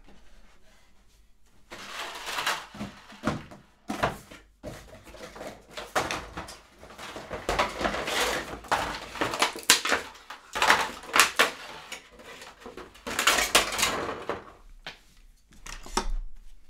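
Someone rummaging for a computer case fan: irregular rustling and handling of objects, with a few sharp knocks and clicks.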